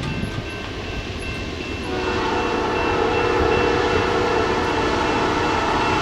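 Nathan P5 five-chime locomotive air horn sounding a held chord, coming in about two seconds in over the rumble of a moving train.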